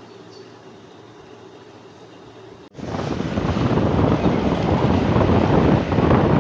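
A faint steady low hum, then, about three seconds in, an abrupt cut to loud rushing, buffeting wind noise on the microphone.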